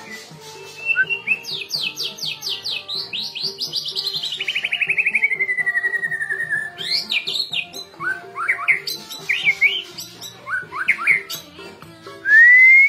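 White-rumped shama singing: a fast trill of notes that slides down in pitch, then varied short whistled phrases, and a loud rising whistle near the end.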